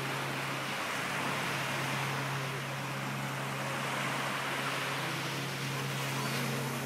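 Small waves breaking and washing up a sandy beach, a steady hiss of surf, over a steady low drone.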